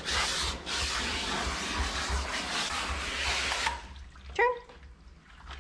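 Garden-hose spray nozzle with a shampoo canister attached, spraying soapy water into a dog's thick wet coat: a steady hiss that stops a little under four seconds in. A brief short whine follows.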